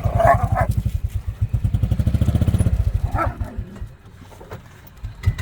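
Small gas golf cart engine running with a steady, rapid pulsing while the cart fails to climb the soft, muddy gravel hill. The engine drops away about four seconds in and picks up again near the end.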